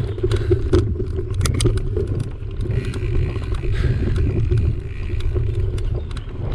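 A mountain bike being ridden down a dirt singletrack: a steady low rumble of wind and tyres on the dirt, with frequent sharp clicks and rattles from the bike over the bumps.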